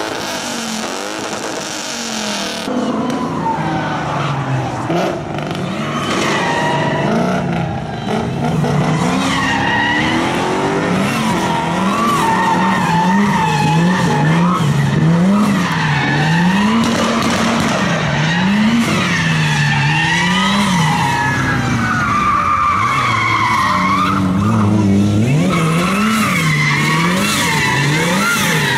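Drift car's engine revving up and down again and again as the driver works the throttle through a slide, the pitch swinging about once every second or so, with the rear tyres squealing in wavering tones over it.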